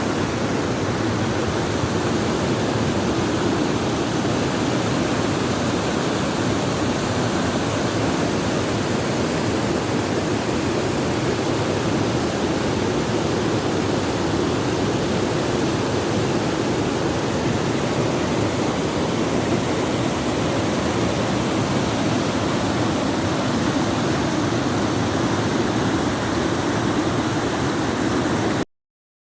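Waterfall: water falling and splashing in a steady, unbroken rush that cuts off suddenly near the end.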